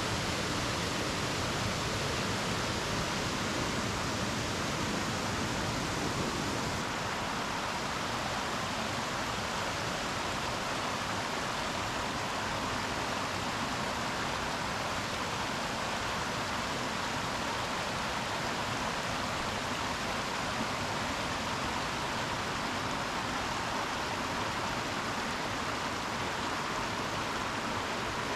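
Creek water rushing steadily over a small waterfall and rocks, an even unbroken rush.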